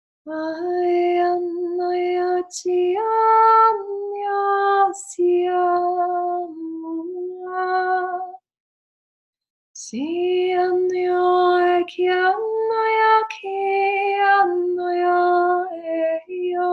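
A woman singing unaccompanied, wordless sustained tones in two long phrases with a short silence between them, the notes stepping up and down among a few nearby pitches.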